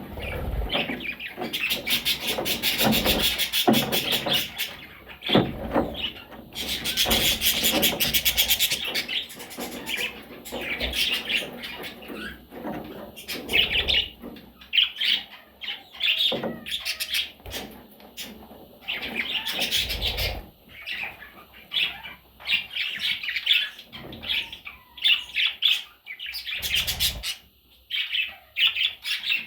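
Baby budgies chirping and calling again and again, with rapid strings of high, scratchy chirps. A few dull thumps are mixed in.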